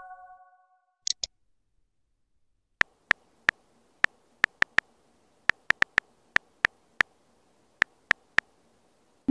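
On-screen phone keyboard key-press clicks: about seventeen short ticks at an uneven typing pace as a short message is tapped out. A chime dies away at the start, and a pair of high clicks sounds about a second in.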